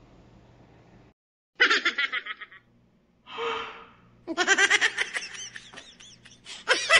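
A man laughing in runs of quick breathy 'ha' pulses, with a short breathy gasp between the two runs.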